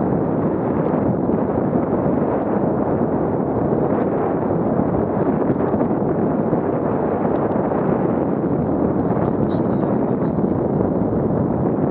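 Steady rushing noise of wind buffeting an action camera's microphone, mixed with the scooter's wheels rolling on tarmac at about 14 mph.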